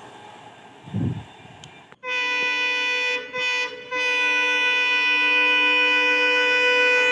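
The rumble of a receding train fades out, with a low thump about a second in. Then an Indian locomotive horn sounds from an approaching train: two short blasts, then a long steady blast.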